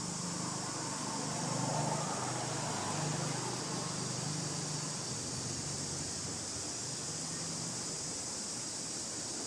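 Steady high-pitched hiss with a low, uneven hum underneath, a little louder about two seconds in.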